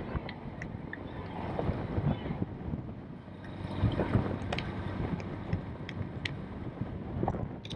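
Wind buffeting the microphone over a low, steady rumble, with a few light knocks.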